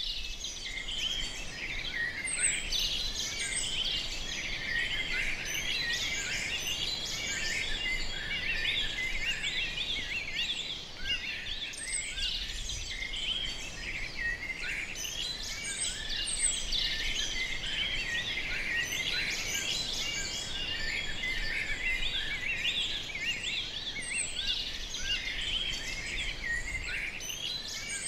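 Many songbirds singing at once: a dense, continuous chorus of overlapping high chirps.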